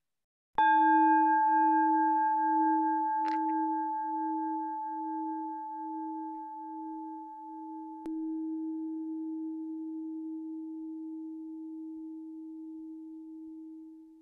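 A singing bowl struck and left to ring, its low tone wavering in a slow pulse under several higher overtones, with a small click about three seconds in. It is struck again about eight seconds in and rings on, fading out near the end.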